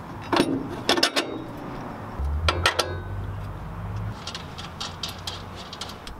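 Sharp metallic clinks of a nut and wrench against a car's suspension hardware, several in the first three seconds, with a low rumble for about two seconds in the middle.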